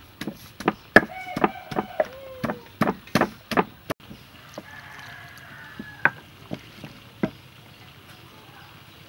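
Wooden pestle pounding chillies, garlic and herbs in a mortar to make a paste, in steady knocks about three a second, then only a few scattered knocks after about four seconds.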